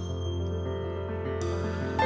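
Contemporary jazz quartet music: soft, held piano chords ringing over a sustained low note, with no drum hits, a couple of new chords coming in partway through.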